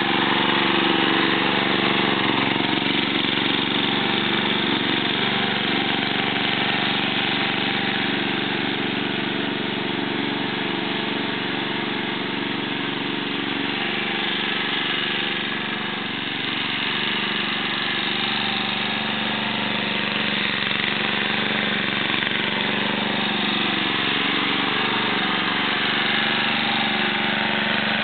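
Remote-control lawn mower's engine running steadily, with a slight drop in level about halfway through.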